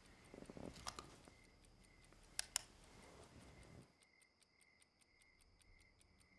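Near silence: faint, fast, even ticking, with a soft rustle or two and two sharp clicks close together about two and a half seconds in.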